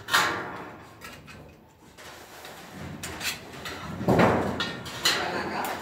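Light-gauge steel studs clanking and scraping as they are handled and fitted: several sharp metallic knocks, with a louder scraping clatter about four seconds in.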